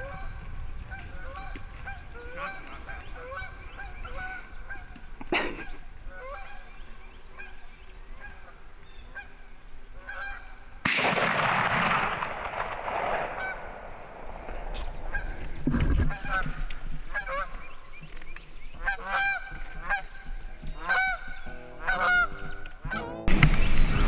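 Canada geese honking again and again, the calls coming thick and fast in the last few seconds. A sudden rushing noise breaks in about halfway and fades over a couple of seconds, and another loud rush comes in just before the end.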